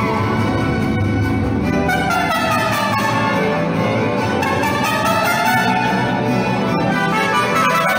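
Mariachi playing live: violins carry a melodic line that sweeps down and then back up, over strummed guitars, with trumpets in the ensemble.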